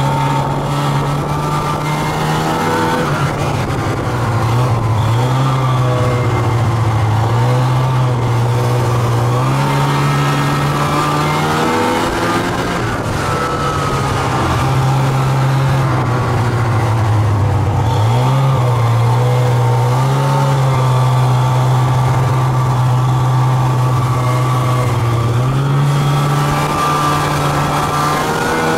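Snowmobile engine running under way, its pitch rising and falling several times as the throttle is opened and eased, over a steady noisy rush.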